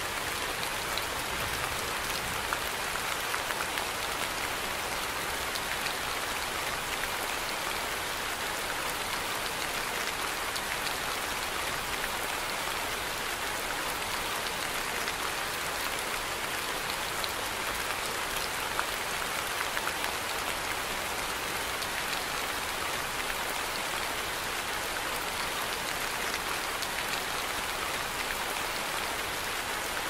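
Steady rain falling on tree leaves: an even hiss of rainfall with scattered drop ticks, unchanging throughout.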